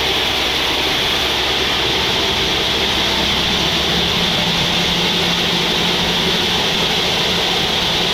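Sawmill machinery running steadily, a loud even noise with a strong high hiss; a low hum underneath drops out about four seconds in.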